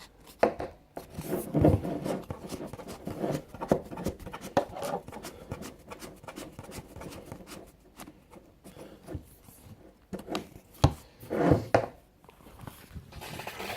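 Wera 7005C torque wrench having its setting wound back to zero by hand: a long run of small irregular clicks and rubbing from the adjuster, with a few louder handling knocks.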